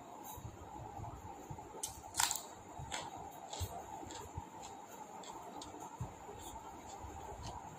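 A person eating biryani: scattered small clicks and soft handling noises of food being mixed and chewed, with one sharper click about two seconds in.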